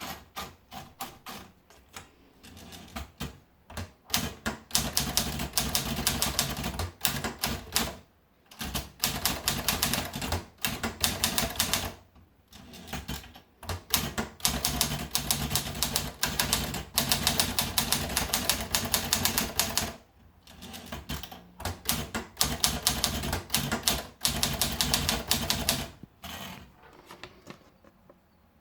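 Olivetti Scribe manual portable typewriter being typed on: fast runs of sharp key-strike clicks in bursts of several seconds, with short pauses between them.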